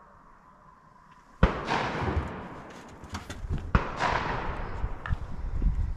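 Two shotgun shots about a second and a half in and again about two seconds later, each a sharp bang followed by an echo that rolls away over about a second.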